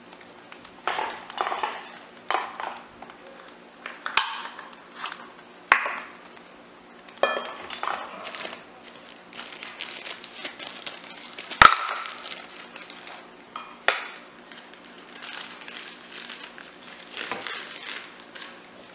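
Plastic bag of rice flour crinkling and rustling in irregular bursts as it is handled and tipped, with a few sharp knocks. The loudest knock comes a little after halfway.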